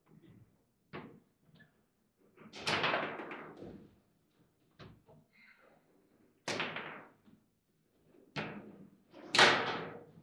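Table football play: the hard plastic ball struck by the rod figures and cracking against the table's walls, with rods knocking at their ends. A series of sharp slams and knocks every second or two, the loudest near the end.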